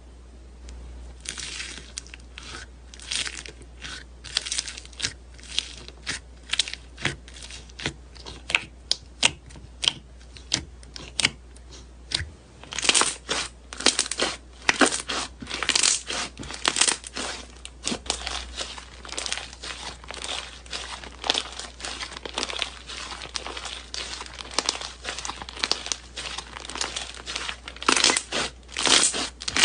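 Slime being handled: pressed, squeezed and stretched by hand in a continuous run of crackles and small pops, sparse at first and coming thicker and faster from about halfway through.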